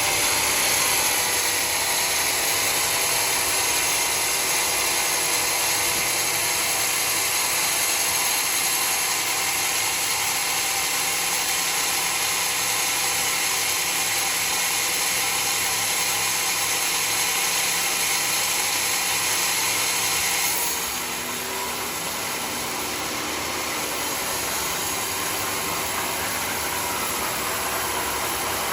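Sawmill blade cutting through mahogany log, a steady high hissing saw noise; about twenty seconds in the cutting sound stops abruptly, leaving the saw's motor running on without load.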